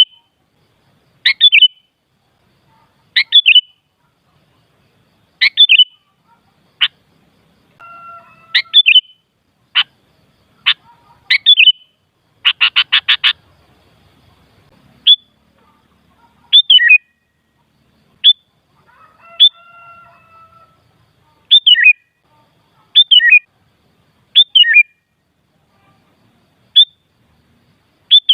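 Sooty-headed bulbul (kutilang) giving short, loud chirping calls every second or two, with a quick run of about seven notes near the middle and fainter, lower calls twice in between.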